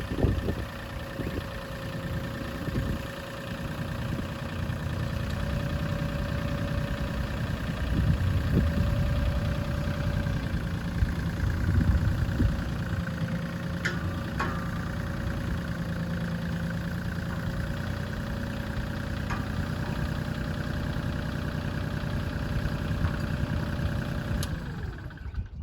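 An engine running steadily at idle, with a few sharp clicks around the middle. It cuts off abruptly near the end.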